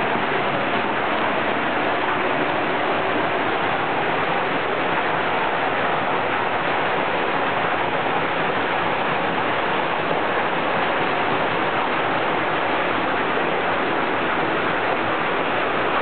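Hot-spring water falling from spouts in a steady stream into a bath pool, a continuous splashing rush like a small waterfall.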